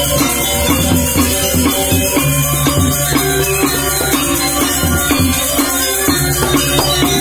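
A Balinese gamelan gong ensemble playing. Bronze metallophones ring in dense patterns over deep low gong tones held about two seconds at a time, with a steady shimmer of small cymbals on top.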